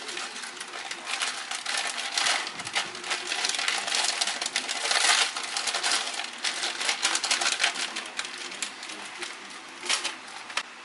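Plastic ramen seasoning sachet crinkling and crackling as hands work it and squeeze it out over a pot, loudest midway and easing off near the end.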